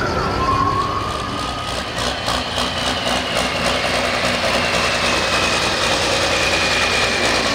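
A modified pulling tractor's engine running steadily at low speed, with a high whine over it that slowly drops in pitch.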